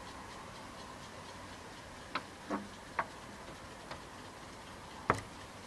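Quiet outdoor background with five short, sharp ticks at uneven intervals, starting about two seconds in, the loudest near the end.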